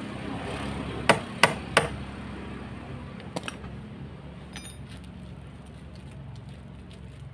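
Three sharp hammer taps about a third of a second apart, followed a couple of seconds later by two lighter taps, over a steady low hum.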